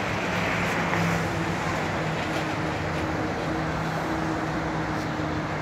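Road traffic noise from nearby cars, with a steady low engine hum underneath.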